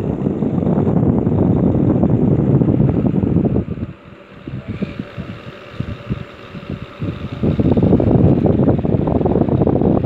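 Arno NV-16 table fan running, its airflow blowing straight onto the microphone as a loud, steady rush of air. For about three and a half seconds in the middle the rush drops away to the fan's quieter running hum, then it comes back.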